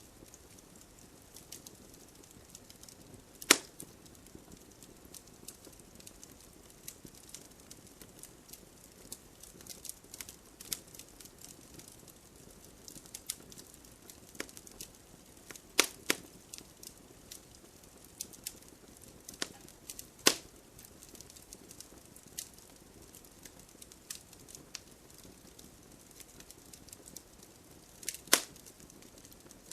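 Wood fire burning in a fireplace: a low steady hiss with scattered crackles and a few loud sharp pops of burning logs.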